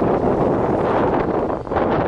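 Exhaust of a Subaru Legacy Touring Wagon 2.5i's EJ25 flat-four engine running out of the dual tailpipes, with wind buffeting the microphone.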